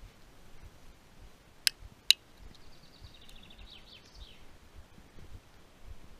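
A dog-training clicker pressed and released, two sharp clicks under half a second apart, marking the dog at the moment it sits. Just after, a small bird sings a short high trill of repeated notes that step down in pitch.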